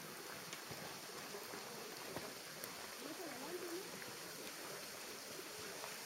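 Steady hiss of rain, with a faint distant voice about halfway through.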